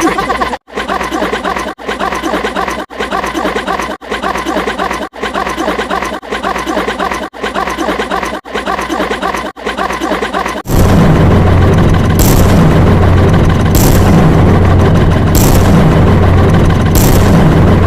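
Looped sound-effect clips: a short pitched clip repeated about once a second, then, about eleven seconds in, a loud steady engine-like rumble begins suddenly, with short hissing bursts about every second and a half.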